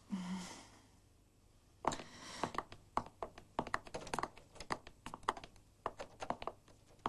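A short breathy sound at the start, then a run of irregular sharp clicks and taps, several a second.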